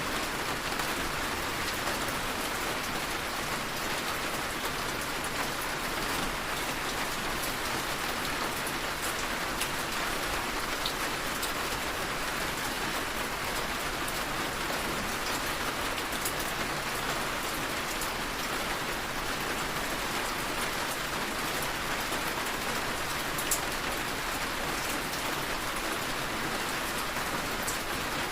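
Steady rain falling, an even hiss with scattered drops tapping; one sharper tap about two-thirds of the way through.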